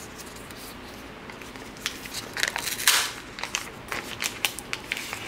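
Thin protective wrap being peeled and crinkled off a new keyboard: a run of sharp crackles starting about two seconds in, with one louder rustle near the middle.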